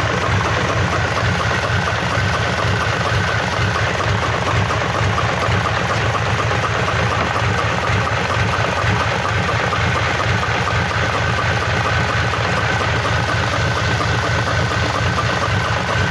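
Freshly rebuilt Mitsubishi Fuso D16 diesel engine idling steadily on a makeshift stand, out of the truck.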